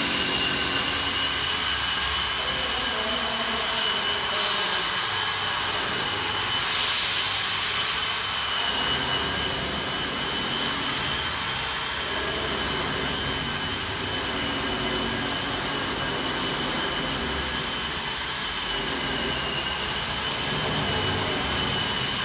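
A steady high-pitched motor whine over a continuous hiss, unchanging.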